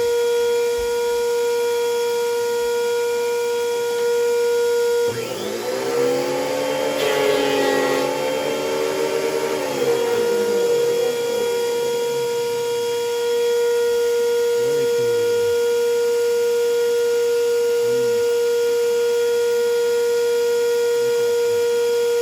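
Craftsman 15-amp benchtop thickness planer and a dust-collecting shop vacuum running with a loud, steady whine. About five seconds in, a board feeds through and the planer takes a 1/32-inch cut: the sound thickens and the pitch sags under the load, then comes back up as the board clears about five seconds later.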